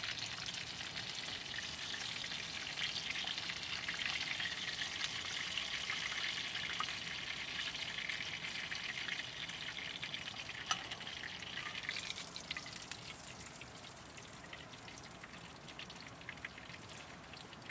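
A steady sizzling hiss with scattered small crackles, which drops off sharply about twelve seconds in and leaves a fainter hiss with occasional ticks.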